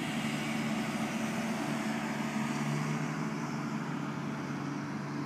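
Motorboat engine running steadily, a low, even hum.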